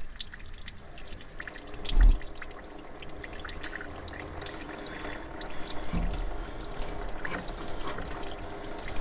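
Engine coolant gushing from a loosened drain screw and splashing steadily into a drain pan, a good amount of it. A loud thump about two seconds in.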